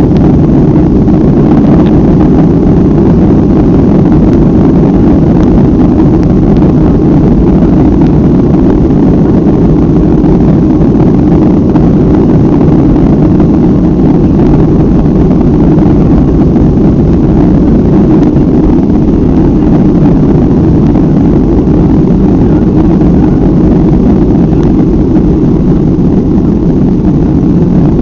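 Cabin noise of a Boeing 737-500 on its takeoff roll: the CFM56-3 turbofans at takeoff thrust, mixed with the wheels rumbling on the runway, heard from inside over the wing. It is a loud, steady, deep roar that eases slightly near the end.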